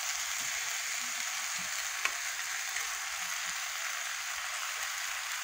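Raw chicken pieces frying in a hot pot as they are tipped in: a steady sizzling hiss with a faint click or two.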